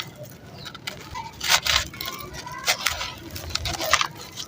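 Stone-and-sand cement chunks crumbling in a lot of water: a series of short gritty crunches, the loudest about a second and a half in.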